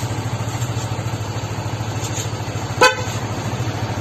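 Yamaha NMAX scooter's single-cylinder engine idling with a steady pulsing rumble, and one short horn beep nearly three seconds in.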